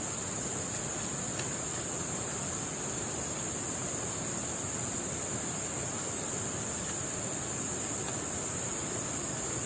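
Steady, unbroken high-pitched drone of a tropical forest insect chorus, over an even low hiss of background noise.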